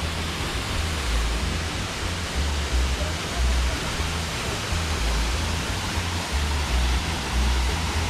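Tall waterfall plunging into a rock pool: a steady rushing hiss of falling water, with an uneven low rumble underneath.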